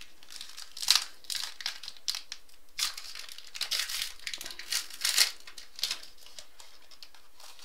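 Foil trading-card pack wrapper crinkling and tearing as it is opened by hand: a run of short rustling bursts, loudest about a second in, that stops about six seconds in.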